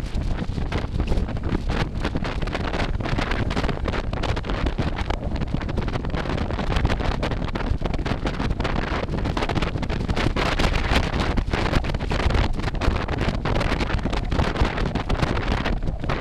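Wind buffeting the microphone of a moving electric scooter: a steady, gusty rush heaviest in the low end, with no engine sound.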